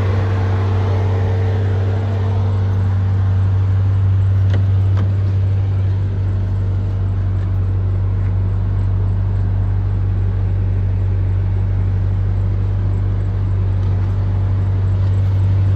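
A vehicle's engine running steadily: a loud, low, even rumble with no change in pitch.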